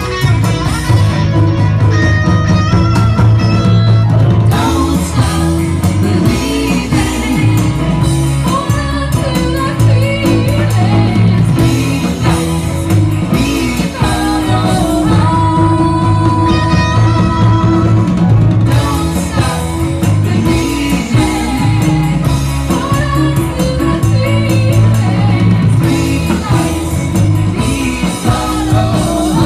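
Music: a band playing, with electric guitar and a singing voice, at a steady loud level.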